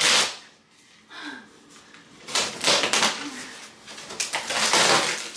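Corrugated cardboard of a large shipping box being torn open by hand, in several short ripping tears.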